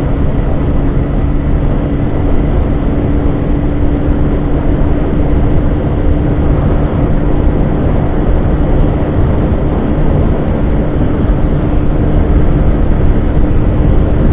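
Yamaha Factor motorcycle's single-cylinder engine held at full throttle in fifth gear near top speed, a steady engine drone under heavy wind rush on the microphone, getting slightly louder toward the end as the speed creeps up.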